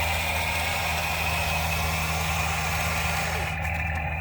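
Toy RC excavator's electric motor running steadily, a low hum under a broad hiss; the hiss drops away near the end.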